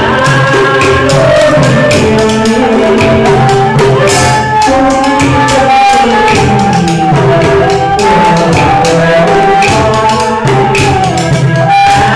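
Vietnamese chèo folk music: a melody of held and gliding notes over a steady clicking percussion beat.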